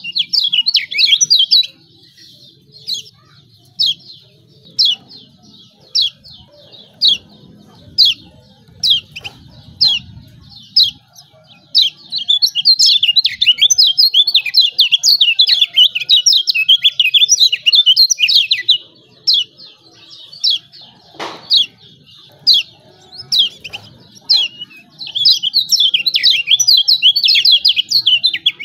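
Kecial kuning (Lombok white-eye) giving sharp, high 'ciak' chirps about once a second. About twelve seconds in the chirps run together into dense, excited chattering, then break back into single chirps, then run together again near the end.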